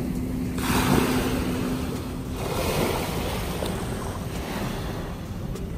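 Small waves washing up onto a sand-and-pebble beach, swelling about half a second in and again near three seconds.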